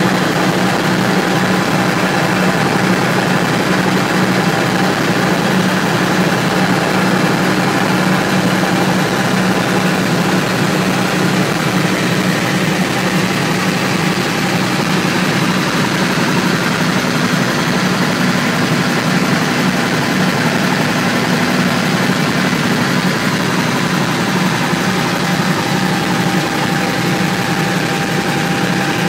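Helicopter in flight heard from inside the cockpit: a steady, loud drone of engine and rotors, with a few constant whining tones above it.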